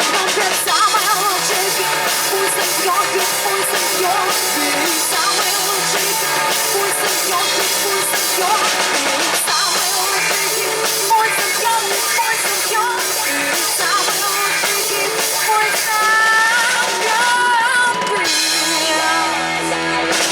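Live rock band playing, with drum kit and electric guitar; near the end the drumming stops and the band holds a final chord as the song closes.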